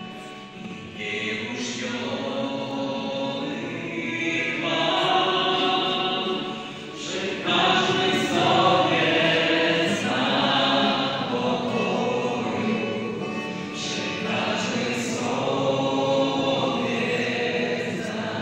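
A Christmas carol (kolęda) sung in a church, a man's voice leading over acoustic guitar.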